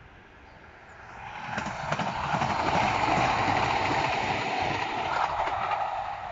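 Karlsruhe Stadtbahn tram-train passing close by: the rumble of its wheels on the rails swells up over about a second and a half and holds loud for a few seconds, with a few sharp clicks, before easing off near the end.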